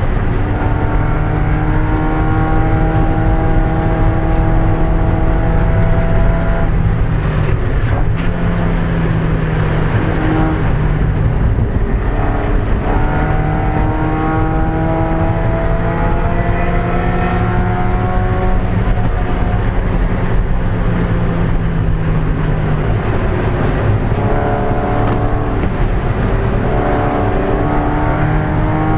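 1995 Mazda Miata's four-cylinder engine running hard under racing load, its pitch climbing slowly through each gear and dropping back at gear changes several times.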